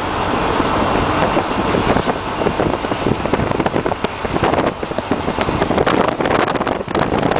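Wind buffeting the microphone of a car moving at speed, rough and fluttering, over steady road noise.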